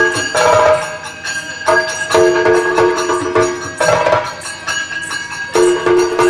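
Yakshagana ensemble music: drums and jingling percussion played in rapid strokes under a melody of long held notes that come in phrases of about a second or more.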